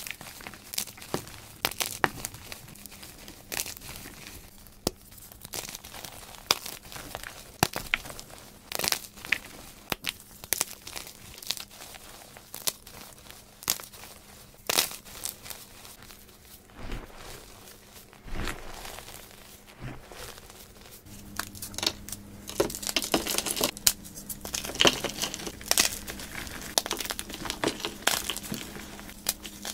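Blocks of gym chalk, plain and dyed, broken and crumbled between fingers into powder: a run of irregular soft crunches and dry crackles, busier and louder over the last third.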